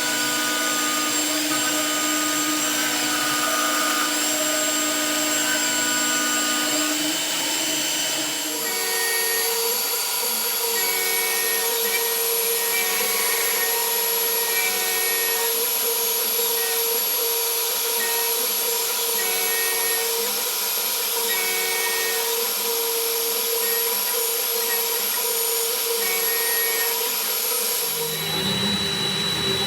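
BF20 milling machine running a face-milling pass: a steady mechanical whine of spindle motor and cutter with a hiss above it. The pitch pattern changes abruptly about a third of the way in and again near the end.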